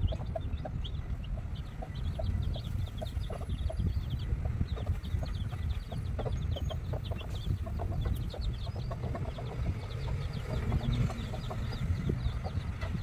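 Chicks peeping in quick, short, high chirps throughout, with a hen clucking in short low notes, over a steady low rumble.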